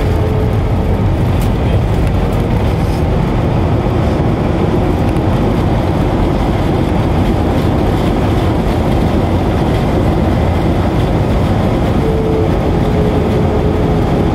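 Steady engine and rolling rumble inside the cabin of an Airbus A321 moving on the ground after landing, with a faint steady whine that is a little stronger near the end.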